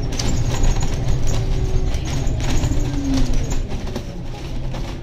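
Scania N280UD double-decker bus running on compressed biogas, heard from inside the lower deck while it drives: a low engine and road rumble with a drone whose pitch rises and falls, and frequent rattles and clicks from the bodywork and fittings.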